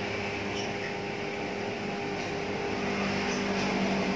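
Cordless electric hair clipper running with a steady hum while it trims the short hair at the back of the neck, a little louder near the end.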